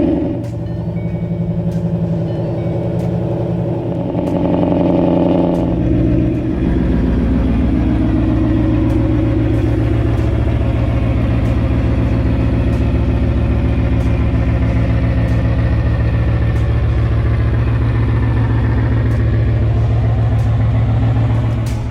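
Ford Mustang's 5.0 Coyote V8 engine running, its note shifting between about four and six seconds in, then holding steady.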